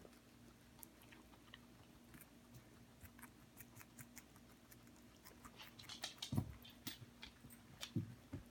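Two guinea pigs chewing a lettuce leaf: a run of small, quick clicks, busier and louder in the last few seconds. A couple of soft thumps come near the end.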